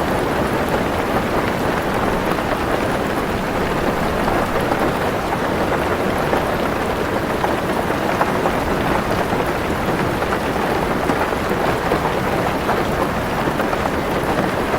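Heavy rain drumming steadily on a car roof, heard from inside the car as a dense, even patter with no break.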